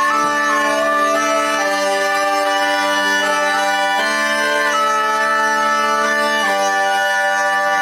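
Bagpipe music: a steady drone holds underneath while a melody moves in stepwise held notes above it.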